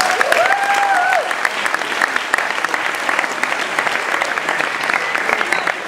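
Audience applauding steadily after a bid announcement, a dense run of many hands clapping at once.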